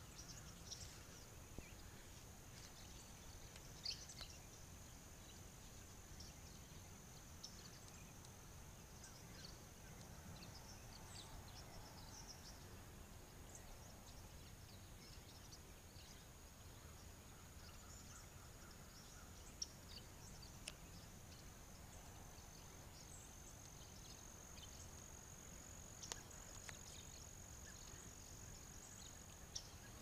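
Faint, scattered high chirps and calls from a large flock of small birds, over a steady high-pitched tone and low background hiss.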